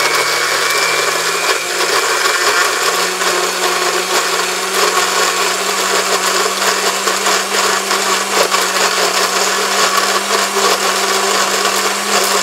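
Electric countertop blender running steadily, blending ice with banana and pomegranate: a loud, even whir over a constant motor hum, with scattered sharp rattles from the ice.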